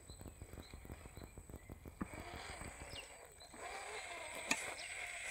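Electric RC rock crawler working over boulders: rapid clicking from the drivetrain and tyres as it creeps along, then from about three and a half seconds a wavering motor whine that rises and falls with the throttle.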